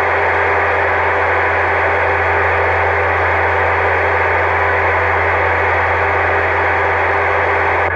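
CB radio loudspeaker giving a steady hiss with a low hum underneath, no voice on it, while the signal meter stands high: a station is keyed up and transmitting an open carrier without talking. The hiss cuts off suddenly near the end.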